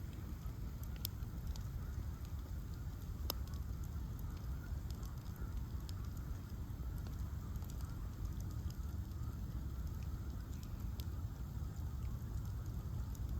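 Bonfire of ash logs burning: a steady low rumble with scattered sharp crackles and pops, the loudest about three seconds in.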